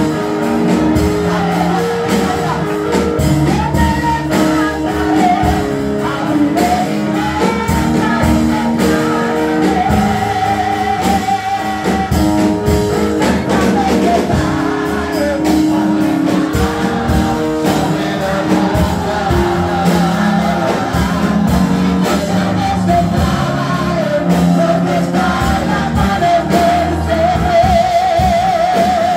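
A woman singing a worship song into a microphone, her held notes wavering with vibrato, over live band accompaniment with a steady beat, amplified in a large hall.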